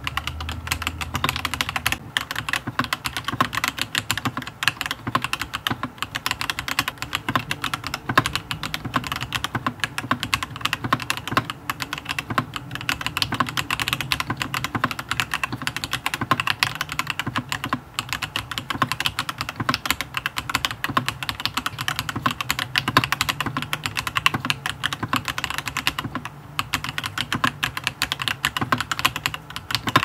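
Dareu Z82 mechanical keyboard with Dareu Blue Sky V2 switches and round keycaps being typed on fast and without pause: a dense, steady stream of keystroke clacks.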